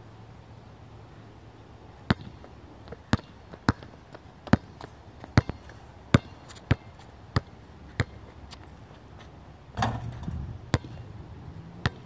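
Basketball being dribbled on an outdoor court: sharp bounces starting about two seconds in, roughly one every two-thirds of a second, with a longer, noisier burst near the ten-second mark.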